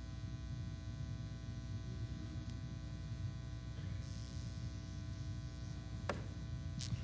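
Steady electrical mains hum and buzz, with a single sharp click about six seconds in.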